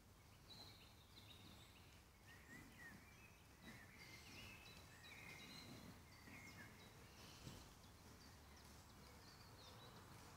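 Faint woodland birdsong: several birds giving short high chirps and whistles, over a low steady rumble of background noise.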